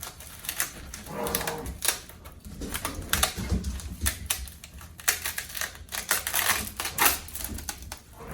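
Brittle skin of a dried loofah gourd being cracked and peeled away by hand: a long run of crisp crackling and snapping.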